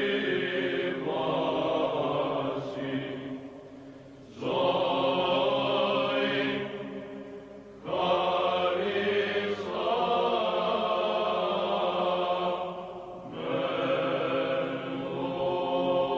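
Orthodox liturgical chant: long sung phrases of held notes. Each phrase fades out before the next begins abruptly, about four seconds in and again about eight seconds in.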